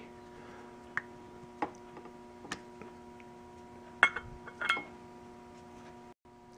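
Scattered light clicks and taps from handling the carburetor and the screwdriver, with two sharper metallic clinks about four seconds and four and a half seconds in. A faint steady hum runs underneath.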